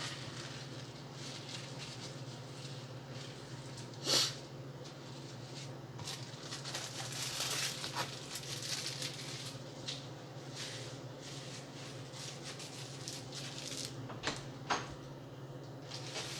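Kitchen handling sounds: a sharp knock about four seconds in, rustling in the middle, and two quick knocks near the end, over a steady low hum.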